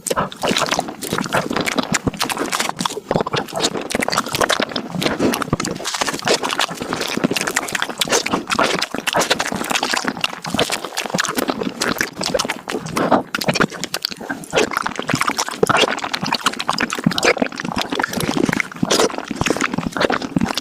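Close-miked eating sounds of mango desserts, sped up five times: a rapid, unbroken stream of wet chewing, smacking and slurping.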